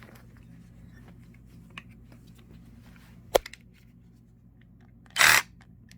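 Handling of a cordless reciprocating saw's blade holder while a blade is mounted: faint clicks, one sharp click a little past three seconds in, and a loud, brief burst of noise about five seconds in.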